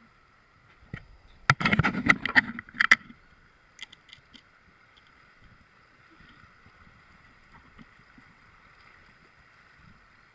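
Water splashing and dripping as a wet cast net holding fish is hauled out of the river, loudest in a burst between about one and a half and three seconds in, then a few small clicks.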